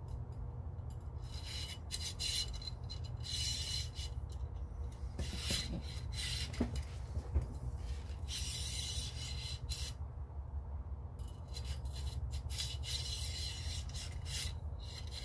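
Cleaning rod with a .22 tip being pushed and pulled through the stainless barrel of a Marlin 795 .22 LR rifle, a rasping rub with each stroke, repeated in uneven strokes with short pauses, over a steady low hum.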